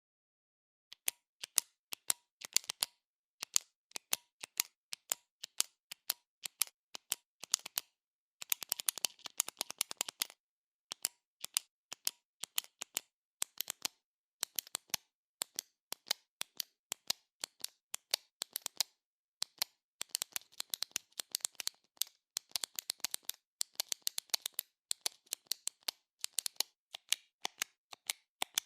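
Sharp, dry clicks in quick irregular runs, some single and some in rapid flurries, with short pauses between runs.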